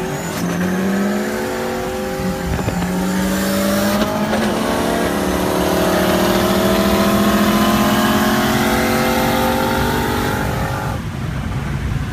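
Car engine at full throttle, heard from inside the cabin, its pitch climbing through the gears with quick shifts about a quarter and a third of the way in, then dropping away suddenly near the end as the throttle is lifted.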